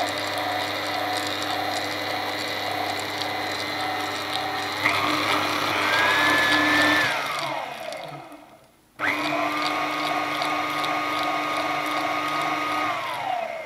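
KitchenAid 5KPM5 stand mixer's motor and gearbox on a test run after a new gear was fitted: a steady hum and whine. About five seconds in the pitch steps up as the speed is raised, then the motor winds down and stops. It starts again about nine seconds in, runs steadily, and begins winding down near the end.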